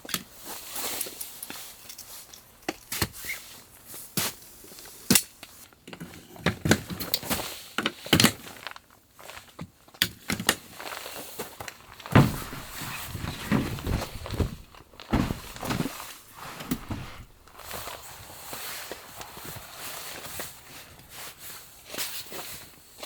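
Footsteps with irregular sharp knocks and thunks scattered through, the loudest about 5, 8 and 12 seconds in.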